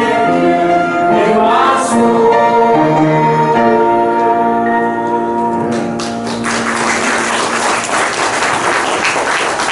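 A small church choir sings, ending on a long held chord about six seconds in. The congregation then applauds.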